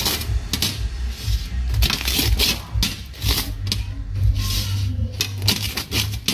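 A large knife pressing down through a baked pizza's crisp crust, crunching and clicking against the metal pizza pan in a quick string of short cuts.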